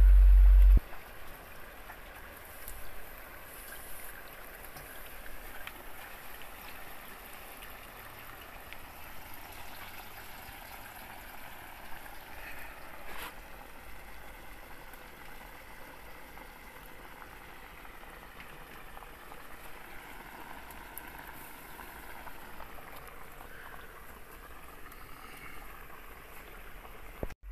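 Nutria meat and vegetables sizzling on a hot saj pan: a steady soft hiss and crackle, with a single click about 13 seconds in.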